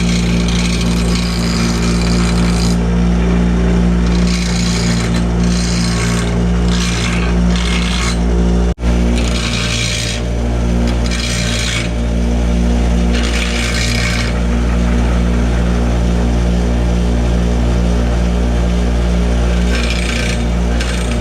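An electric grinder runs steadily, with repeated one-to-two-second spells of rasping as cut galvanized steel pipe stubs are pressed to the wheel to grind off sharp edges. There is a brief break in the sound nearly nine seconds in.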